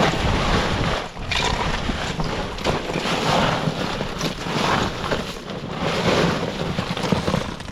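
Wind buffeting the microphone on a small boat at sea, a loud rumbling rush that swells and eases, with water sloshing around the hull.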